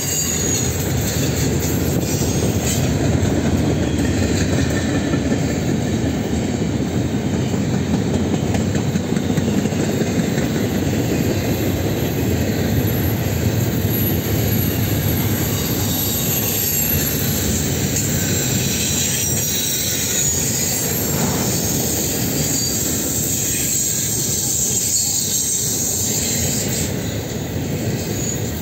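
Double-stack intermodal well cars rolling steadily past on curved track: a continuous rumble and clatter of steel wheels on the rails, with some high-pitched squeal from the wheel flanges.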